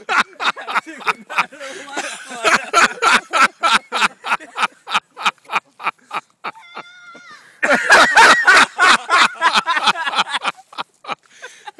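Burning fire crackling and popping in rapid, irregular sharp cracks, with a brief whistling tone past the middle and a louder, denser run of crackling just after it.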